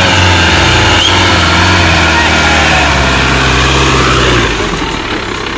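Off-road tube-frame buggy's engine running loud and steady as it pulls up a slope close by, then easing off about four and a half seconds in.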